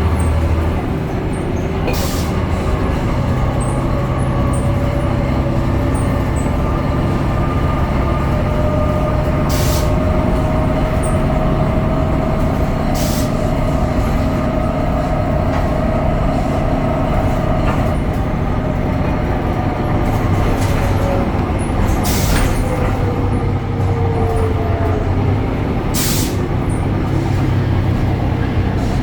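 BredaMenarini Avancity Plus city bus under way, its Deutz Euro 5 diesel and ZF gearbox running steadily with a whine that holds, then falls in pitch after about twenty seconds. About five short sharp knocks or rattles come through.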